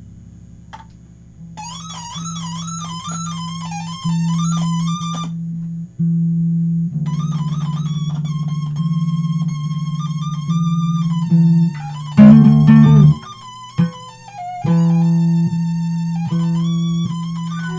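Improvised instrumental music. A low instrument holds long notes while a higher one plays a wavering melody with heavy vibrato, and a louder, denser chord sounds about twelve seconds in.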